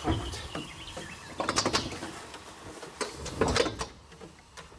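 Replica Pfalz D.VIII biplane's engine being pulled through by hand at the wooden propeller, the engine not running: a short rush of air with each pull, three times, over a low rumble.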